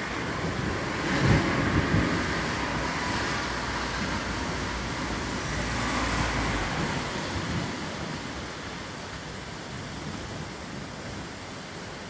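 Thunderstorm: steady rain noise under low, rolling thunder that swells about a second in and again around six seconds, then slowly fades.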